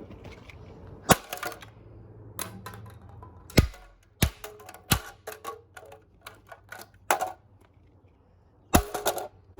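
Irregular sharp clicks and knocks of the hard plastic casing and parts of a cheap robot vacuum cleaner being handled and pried apart, with a quick run of clicks in the middle.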